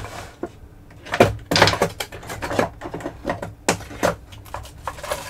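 Hand tools and small parts being moved about and knocked together on a workbench while searching for a pair of snips: a string of irregular clicks and clacks, loudest in a cluster about a second and a half in.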